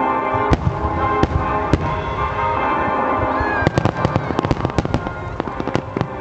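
Aerial fireworks shells bursting over music that plays on: a few separate heavy bangs in the first two seconds, then a dense rapid crackle of many bursts from about halfway through.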